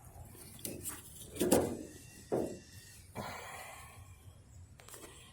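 A handful of separate knocks and clunks from hands working a loosened intake manifold and its bolts on a Dodge 5.9 Magnum V8. The loudest clunk comes about a second and a half in.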